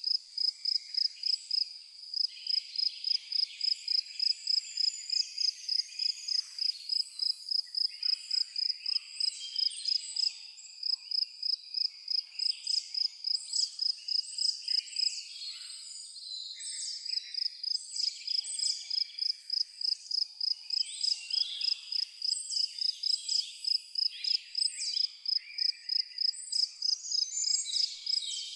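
A cricket chirping in an even rhythm of about two to three chirps a second, pausing briefly a few times. Birds sing varied chirps and trills over it.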